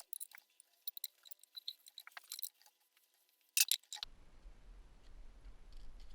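A run of quick, light clicks and clinks, close together and irregular, for about four seconds, with a louder cluster near the end of it; then they stop and a low steady hum is left.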